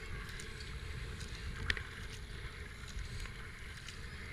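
Double-bladed kayak paddle strokes splashing and dripping in calm river water, with wind rumbling on the helmet camera's microphone. A single sharp tick about a second and a half in.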